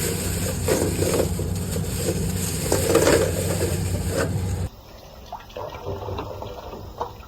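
Tap water running and splashing over eggs being washed. It cuts off abruptly about two-thirds of the way in, leaving a quieter room with a few small clicks.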